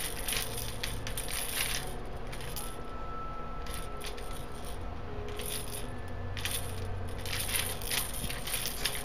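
Small beads rattling inside a clear plastic cage toy as a parrot works it with its beak, in about six short bursts of clicking and clattering.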